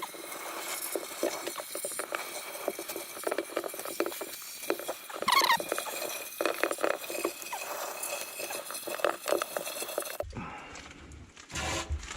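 Water spattering and dripping inside a sewer ejector pump basin as its walls are hosed off, in irregular patters, with a short squeak about five seconds in.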